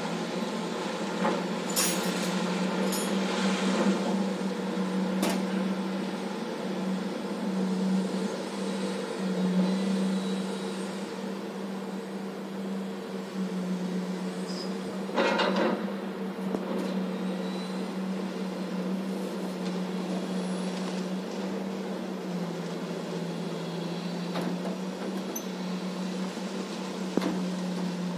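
Heavy diesel mining machinery, a hydraulic excavator loading coal into a dump truck, running with a steady low drone. A few short knocks come in the first few seconds, and a louder rattle lasting about a second comes about halfway through.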